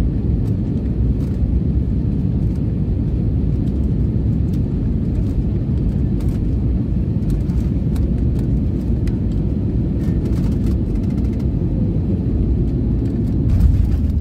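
Steady low cabin rumble of an Airbus A320neo on final approach, engines and airflow heard from a window seat. A few light rattles come through, and the rumble swells briefly near the end as the aircraft reaches the runway.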